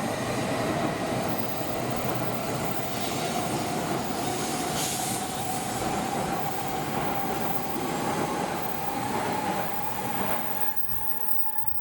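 N700S Shinkansen train running out of the station: a steady rush of running noise with a whining tone that rises slowly in pitch as it gathers speed. The noise drops away sharply near the end.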